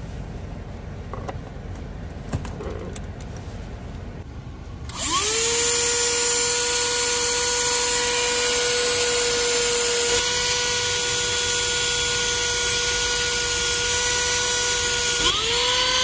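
A 12-volt handheld car vacuum cleaner powered from the cigarette-lighter socket. After a few handling clicks, it is switched on about five seconds in, and its motor spins up with a rising whine, then runs steadily with a high whine. Near the end it cuts out for a moment and spins up again.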